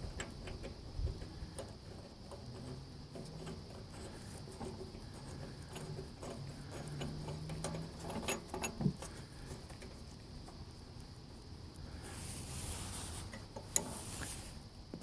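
Small scattered clicks and taps of metal parts being handled as the carburetor float bowl is fitted back on and its purge-valve retaining screw is threaded in. A brief hiss near the end.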